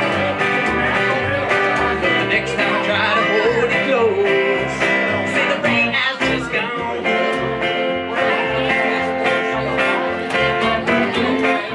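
Live country band playing an instrumental break: electric guitar lead over a steady pulsing upright bass line and strummed acoustic guitar.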